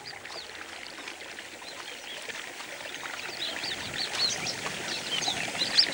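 Many small birds chirping in short rising-and-falling notes, sparse at first and growing denser and louder through the second half, over a faint hiss of flowing water.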